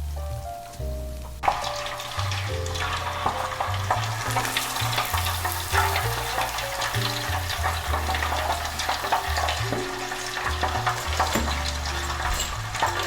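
Breaded cheese corn dog deep-frying in hot oil: a crackling sizzle full of small pops starts suddenly about a second and a half in and keeps on.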